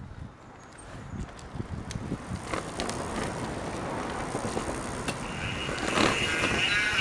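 Recumbent tricycle rolling along, with scattered clicks and rattles and a growing rush of tyre and wind noise; about five seconds in, a steady high whine sets in, the Cyclone 250 W 24 V electric motor driving the chainset.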